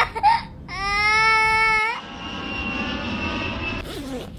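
A high wailing cry, like a baby crying, held for about a second, then about two seconds of steady airliner cabin noise with a thin high whine.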